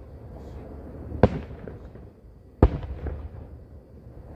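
Aerial firework shells bursting: two sharp booms about a second and a half apart, each trailing off in a low rumble.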